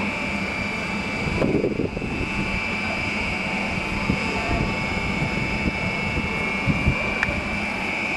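Electric trains at a railway platform: a steady mechanical hum with a continuous high, even whine, broken by a few faint knocks.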